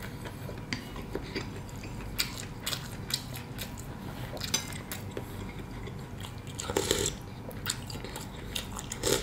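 Close-up chewing and mouth sounds of someone eating beef and noodles: irregular wet clicks and smacks, with a louder, longer noisy sound about seven seconds in.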